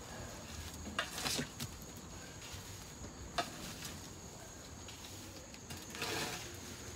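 Pitchfork tines digging into and tossing a pile of partly broken-down compost, straw and food scraps. There are a few short scraping, rustling strokes about a second in, a sharp click around the middle, and a longer rustle near the end.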